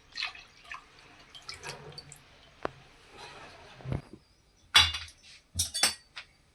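Milk pouring and dripping into a heavy kadhai with light clicks, then three sharp knocks of metal pans and utensils in the second half.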